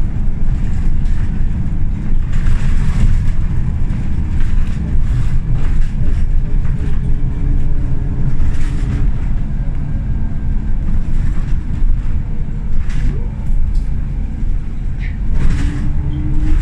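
Scania L94UB single-deck bus on the move, heard from inside the saloon: a steady low engine and road rumble, with a whine rising in pitch near the end.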